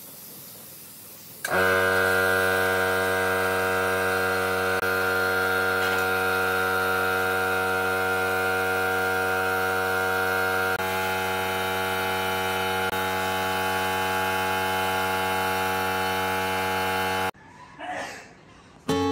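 An electric motor starts abruptly about a second and a half in and runs with a steady, even hum, then cuts off suddenly near the end.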